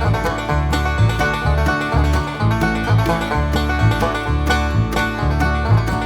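Upbeat banjo-led bluegrass-style background music with plucked strings and a steady bouncing bass.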